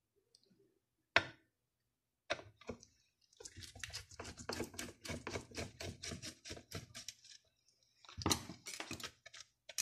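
Screwdriver working a screw out of a steam iron's white plastic housing. A few single clicks come first, then a quick run of small ticking clicks for about four seconds, and a louder clatter near the end.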